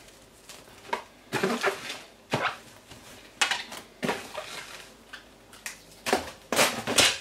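Plastic cling film crinkling and crackling in irregular bursts as it is stretched and pressed down around the rim of a plastic bowl.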